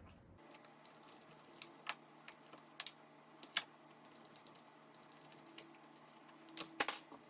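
Scattered light clicks and taps of small metal door hardware being handled while the striker plate is changed, with a louder pair of clicks near the end.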